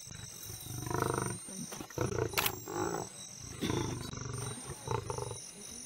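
Lions growling and snarling at a kill in about four harsh, gravelly bouts, each under a second, as the pride squabbles over the carcass.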